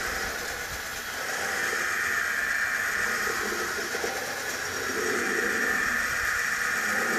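Motorized drawing machine running: small electric motors turning two metal discs through toothed belts and gears, a steady mechanical whir.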